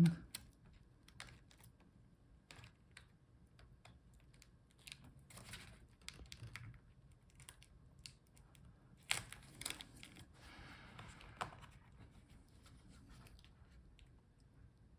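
Faint handling sounds as a new laptop screen and its video cable are fitted: scattered light clicks and rustling of plastic, with a few sharper clicks about nine to eleven seconds in.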